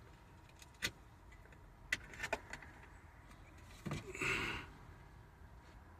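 Small plastic clicks and a short scrape as charging cables are handled and plugged into the vehicle's power outlet: a few single clicks in the first half, then a brief rustle about four seconds in.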